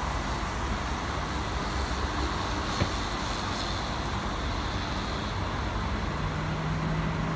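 Steady road noise of a moving bus in city traffic, with one sharp click a little under three seconds in and a low steady engine hum coming in near the end.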